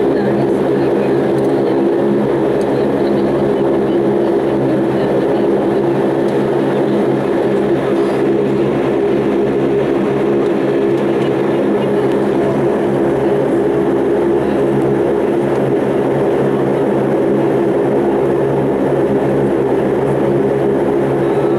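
Saab 340's General Electric CT7 turboprop engines and propellers running steadily, heard inside the cabin beside the engine: a loud, even drone carrying several steady propeller tones.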